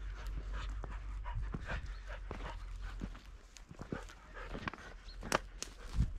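Pointing dog panting close by, with scattered footsteps and knocks. The knocks are loudest near the end.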